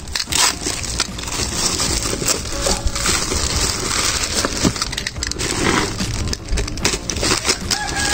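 Clear plastic film crinkling and crackling as it is cut and torn open with a utility knife and pulled off a plastic food container, with many small crackles throughout.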